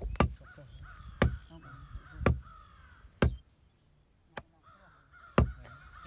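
Machete chopping into a forked wooden branch resting on a wooden block: six sharp chops about a second apart, the fifth softer.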